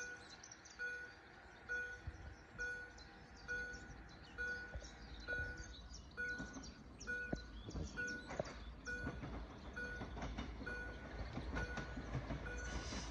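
Railway level-crossing warning bell dinging steadily, a little over once a second, while the barriers are down. About halfway through, a low rumble with scattered knocks joins it.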